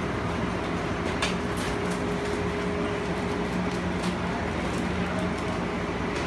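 Steady hum inside a BART Oakland Airport Connector people-mover car as it stands at the platform with its doors shut. It carries one lower and one fainter higher steady tone, with a couple of light clicks.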